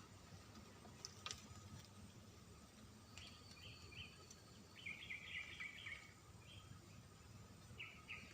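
Faint swamp-forest ambience: groups of quick high chirping calls from small birds or insects, densest about five to six seconds in, over a faint steady high drone. A single sharp tick about a second in.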